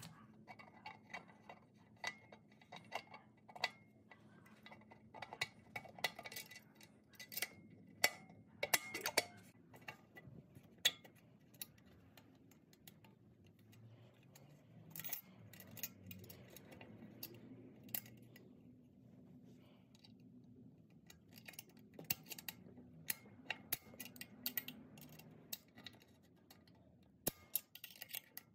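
Light metal clicks and clinks, many short taps scattered irregularly, as a billet second-gear servo piston and its heavier spring are worked by hand into the servo bore of an aluminium 904 transmission case. The spring resists going in.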